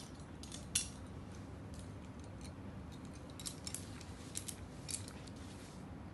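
Climbing carabiners and quickdraws on a lead climber's harness clinking against each other as he moves. There is one sharp clink about a second in, and a few more clustered between three and a half and five seconds.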